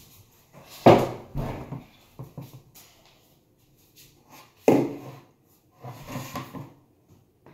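A plastic gallon jug of glue being handled and tipped to pour into a plastic bowl: two sharp knocks, about a second in and again near five seconds, with smaller knocks and rustling handling noise between and after.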